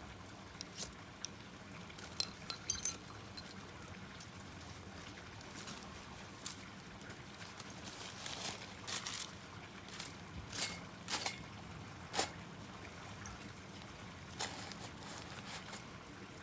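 Wood burning in a small wood stove, crackling: irregular sharp pops and snaps over a faint steady hiss.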